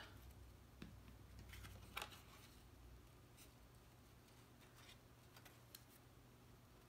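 Near silence with a few faint ticks and rustles of cardstock pieces being handled, the clearest about two seconds in, over a low steady hum.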